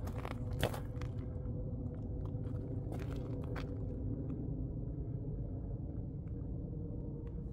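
Footsteps on a dirt forest trail, heard as scattered soft clicks, the sharpest about half a second in, over a low steady rumble.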